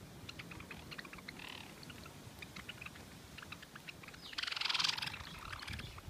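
Flock of Java sparrows at a seed feeder: a steady patter of short, high ticks and chips from the feeding birds, with a louder rushing burst lasting about half a second, about four and a half seconds in.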